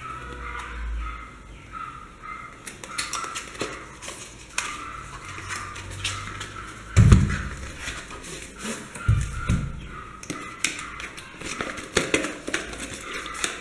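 Paperboard retail box being opened by hand: scattered rustling, scraping and light clicks as the flaps are pulled open and the inner box slides out, with a heavier thump about seven seconds in and another about nine seconds in.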